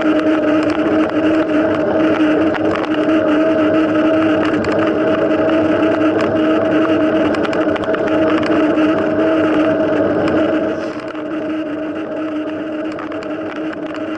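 Steady drone at one unchanging pitch over a rush of wind noise, as heard while riding a mountain bike along at speed. It gets somewhat quieter about eleven seconds in.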